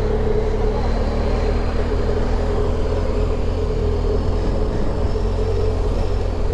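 Steady engine rumble of a running motor vehicle, even in level throughout with a constant low hum.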